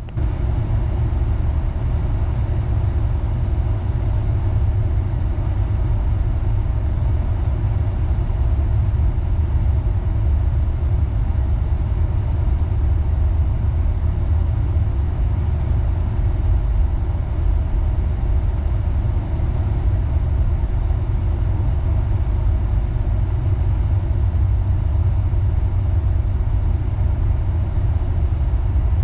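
Passenger train rolling steadily along the track, a continuous low rumble of wheels and running gear.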